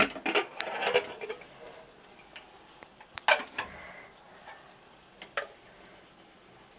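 Aluminium pressure cooker being opened: its lid is twisted free and lifted off, giving a few sharp metallic clicks and clanks, the loudest a little over three seconds in, then a steel ladle knocking against the pot as the cooked grain is stirred.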